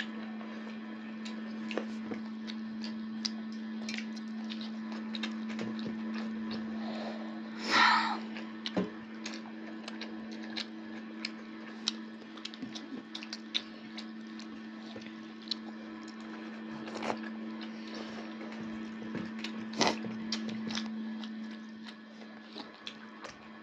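Eating with the hands from metal plates: frequent small clicks and wet smacks of chewing and fingers scooping rice, over a steady low hum. A short, louder noisy burst stands out about eight seconds in, and another just before the end.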